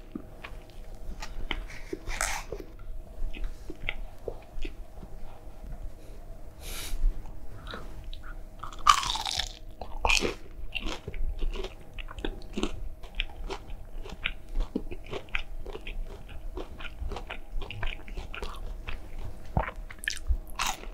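Close-up eating of a bacon burger and chicken nuggets: repeated biting, crunching and chewing with small wet mouth clicks, and one louder, longer noise about nine seconds in.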